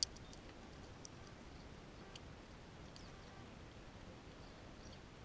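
A fox squirrel gnawing a peanut shell close to the microphone: one sharp crack at the start, then a few faint scattered clicks of teeth on shell.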